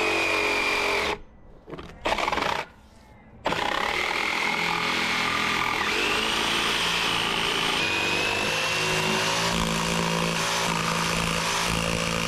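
Power tool motor running under load with a whine that shifts in pitch, stopping briefly twice near the start, then running on steadily.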